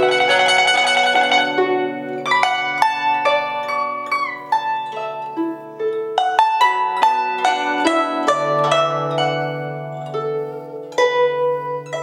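A 100cm travel-size paulownia guzheng (XianSheng "Petite X3") being played: a melody of plucked notes that ring on, with low notes sustaining under the tune and one note bent in pitch about four seconds in.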